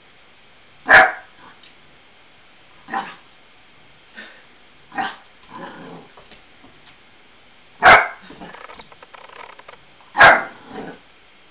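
Eight-week-old Labrador and Australian Blue Heeler cross puppy barking in fright at balloons: about five short, sharp barks, the three loudest about a second in, near eight seconds and just past ten seconds.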